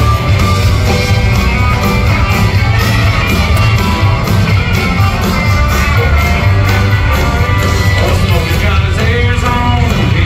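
Live country-rock band playing loudly through a concert PA, with a heavy bass and a steady drum beat under guitar lines.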